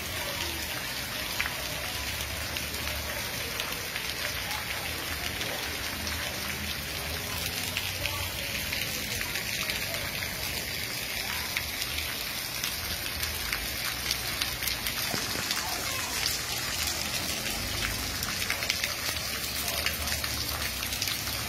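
Heavy rain falling on a wet, flooded street and pavement: a steady hiss dotted with the ticks of single drops.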